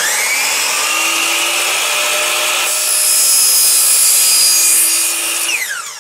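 Compound miter saw with a carbide-tooth blade spinning up with a rising whine and running at full speed, then cutting through an aluminum LED extrusion and its plastic cover on a wood backer, louder and hissier for about three seconds while the blade is in the metal. Near the end the motor is released and the whine falls as the blade spins down.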